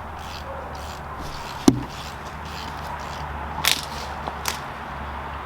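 A sharp knock a little under two seconds in, then two lighter clinks later, from tools and parts during brake disassembly, over a steady low hum.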